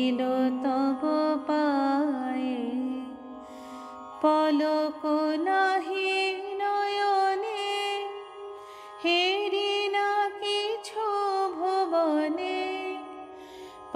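Background music: one ornamented melody with sliding notes, in phrases that start afresh about four and nine seconds in.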